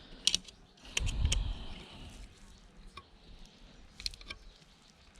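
Metal hand tools clicking and snapping against a small circuit board as a crystal component is worked loose. There are several sharp clicks, some in pairs, and a duller knock about a second in.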